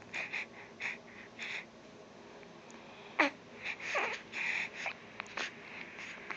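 Baby making short breathy squeals and grunts in separate bursts, with a sharp falling squeak about three seconds in and a longer run of noises around four seconds.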